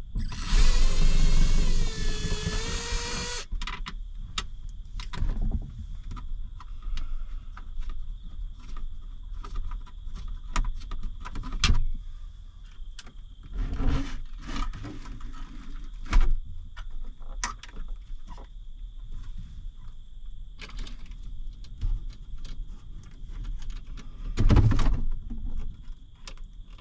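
Small cordless screwdriver motor running for about three seconds, its whine dipping slightly under load as screws are driven out of the combine cab's plastic overhead console. Scattered clicks and knocks follow as the console panel is handled and pulled down from the headliner.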